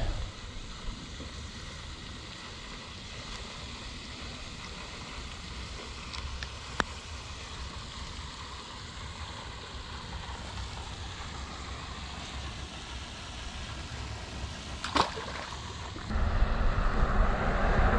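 Steady rushing spray of a pond fountain. A sharp tick about 7 s in and a brief whoosh near 15 s as the rod is cast, then a louder rushing noise sets in near the end.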